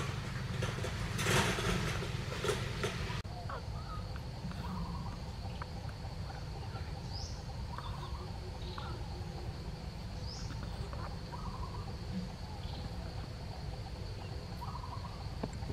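Background ambience with scattered short bird-like chirps and calls over a steady high thin whine and a low hum. The first three seconds carry louder crackling noise, which cuts off abruptly.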